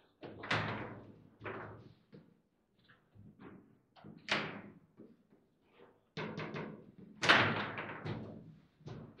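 Foosball play: the ball knocking off the players' figures and the table walls, and the rods clacking, as irregular sharp knocks with short ring-outs. A quick run of clicks comes about six seconds in, and the loudest hit just after seven seconds.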